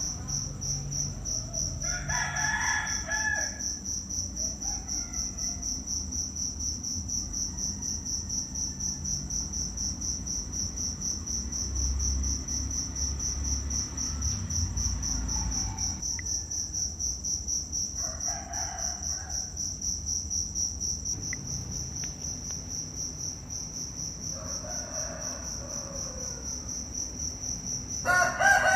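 A shrill insect trill, a high tone pulsing rapidly, runs steadily throughout. Over it come a few short animal calls, the loudest one near the end.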